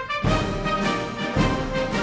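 Background orchestral music with brass, at a steady beat.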